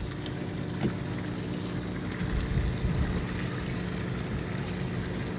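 Fishing boat's engine running steadily, a constant low hum, with a few faint ticks.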